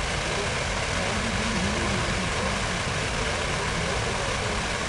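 Steady outdoor city-square ambience: an even, continuous rush of fountain water and traffic, with faint voices at times.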